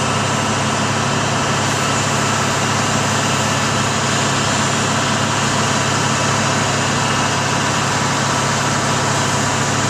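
Heavy diesel engine running steadily at low revs as a truck backs a long multi-axle trailer.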